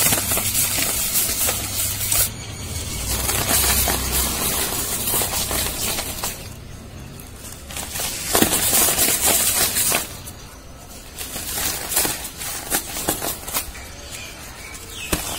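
Dry, dusty material crunching and crackling as fingers squeeze and crumble it, in bursts with a couple of quieter pauses.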